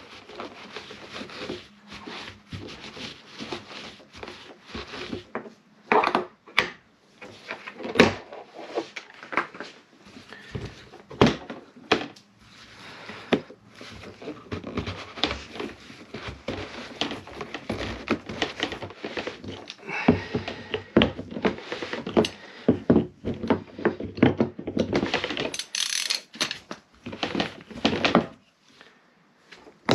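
Irregular knocks, clicks and rustling of hands handling a fuel pump module in the opening of a plastic fuel tank, with a rag rubbing over it.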